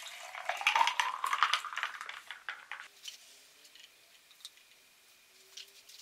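Watermelon juice pouring from a hollowed-out melon into a tall glass over ice cubes, splashing and clinking, its pitch rising as the glass fills, for about three seconds. Then a few light clinks of ice against the glass as it is stirred with a straw.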